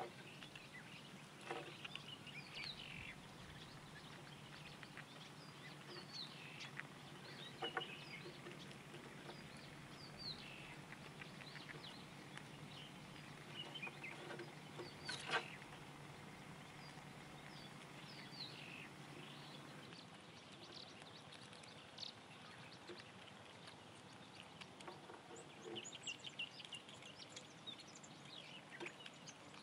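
Wild birds chirping and calling in short, scattered notes over a faint outdoor background. A few sharp clicks stand out, the loudest about halfway through, and a low steady hum stops about two-thirds of the way in.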